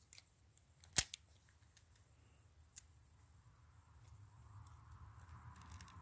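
A Master Lock No. 3 padlock and small metal tools being handled: one sharp metallic click about a second in, a few lighter ticks, then faint rustling of hands over the last couple of seconds.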